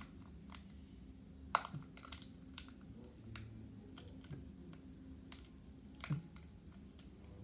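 Irregular light clicks and taps of slime-making supplies being handled and mixed, with two louder knocks, one about a second and a half in and one near the end, over a faint steady hum.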